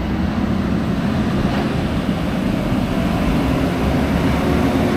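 Steady, unbroken running noise of a moving vehicle: a low engine hum mixed with road rumble.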